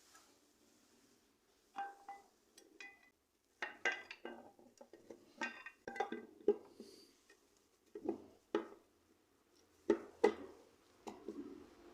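Metal motorcycle clutch parts and tools clinking and clattering as they are handled and fitted, in irregular clusters of sharp clinks with a brief ring.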